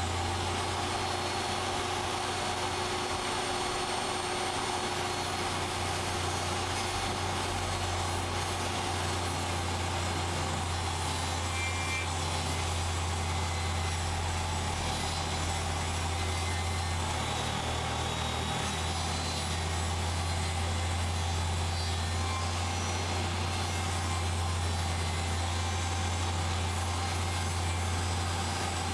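Table saw running steadily as a long strip of wood is ripped lengthwise into a thin batten. A low motor hum sits under the continuous noise of the blade cutting.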